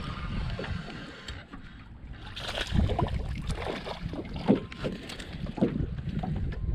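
Wind rumbling on the microphone aboard a small fishing boat, with scattered faint knocks and indistinct background sounds.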